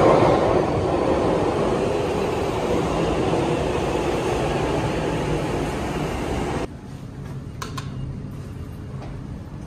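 Train running through the underground station platform, a loud steady rumble that slowly fades. About two-thirds of the way through it cuts off abruptly, leaving a much quieter steady hum with a few short clicks.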